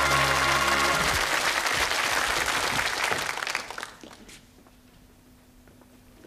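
Studio audience applauding over the tail of the title music. The music ends about a second in, and the applause dies away about three and a half seconds in. After that it is quiet, with a few faint footsteps.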